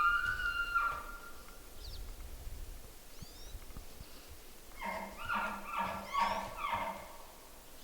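Bull elk bugling: a high, whistled bugle note trailing off about a second in, then, about five seconds in, a run of about five quick chuckles.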